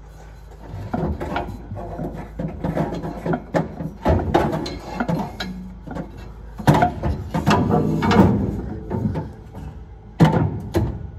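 A metal part being worked by hand out of a car's tube chassis, with irregular knocks, clunks and scrapes against the frame and a louder clatter near the end.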